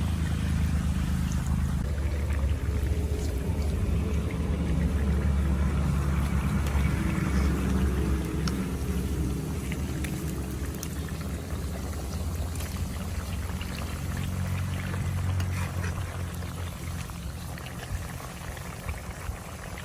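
Potato fries deep-frying in hot oil, a steady sizzle with small crackles over a constant low hum. The sizzle fades over the last few seconds as the fries near readiness.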